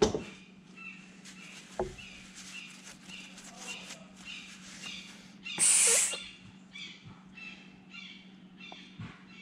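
A regular series of short high chirps, about two a second, over a steady low hum. There is a sharp knock at the start, and about six seconds in comes a loud, short hiss.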